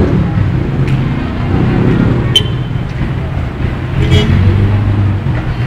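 Road traffic: motor vehicle engines running and passing with a steady low drone, and two short sharp high sounds about two and four seconds in.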